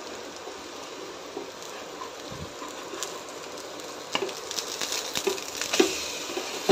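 Besan-coated bread slices sizzling gently on a tawa over a low flame. From about four seconds in, a metal spatula clicks and scrapes against the pan as the slices are lifted and turned.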